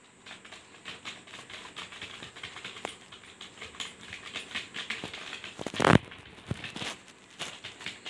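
Fast, uneven typing on a Zebronics ZEB-K35 USB keyboard: a steady clatter of key presses that starts a moment in. About six seconds in comes one louder thump.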